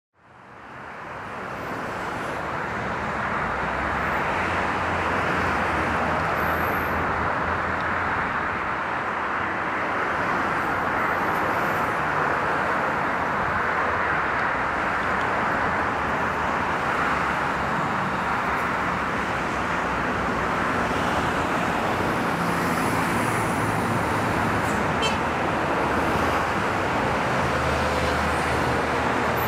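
Steady roar of road traffic, fading in over the first couple of seconds, with a low rumble that swells and eases as vehicles pass.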